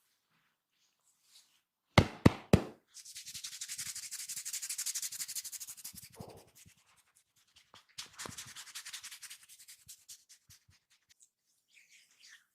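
Three sharp smacks in quick succession about two seconds in, then a barber's fingers scratching and rubbing briskly over the scalp and hair in a fast, dry rasp, in two spells.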